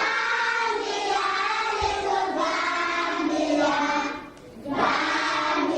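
A choir of voices singing long held notes together, with a short pause about four and a half seconds in.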